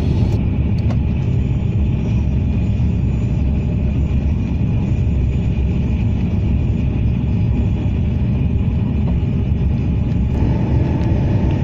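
Thalys high-speed train running at speed, heard from inside the passenger carriage: a steady, loud rumble and rush from the wheels and track, with a faint steady whine above it.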